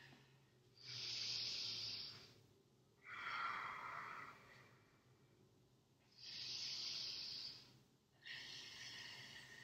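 A woman's slow, audible breathing as she holds a yoga pose: four long, hissing breaths of about a second and a half each, alternately higher and lower in tone, with short pauses between.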